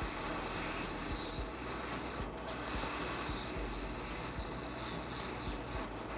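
Hot air rework gun blowing with a steady hiss while an IC is desoldered from the circuit board.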